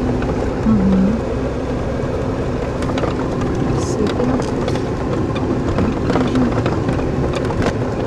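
Car driving slowly over a bumpy, snow-covered dirt road, heard from inside the cabin: steady engine and tyre noise with a few sharp knocks and rattles from the bumps.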